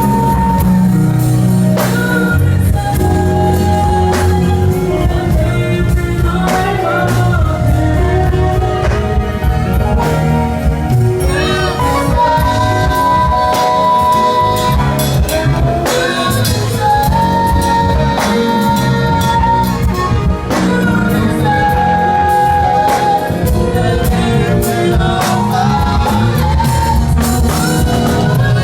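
A gospel song played by a band with a singer holding long notes over a heavy bass line.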